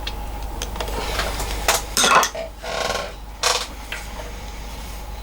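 Small metal hand tools clinking and clicking as wire is stripped and joined: scattered sharp clicks, a louder cluster of knocks about two seconds in, then a longer rough sound lasting just under a second and one more knock.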